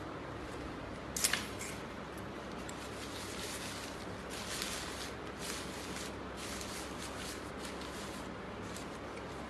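A folding umbrella being closed and handled: a sharp click from it about a second in, then its fabric canopy rustling as it is bunched up by hand, over a steady background hiss.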